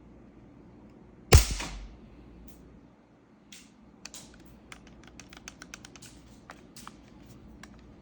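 A single sharp shot from a spring-powered Walther airsoft pistol a little over a second in, followed by a scatter of light clicks and rattles from the gun being handled.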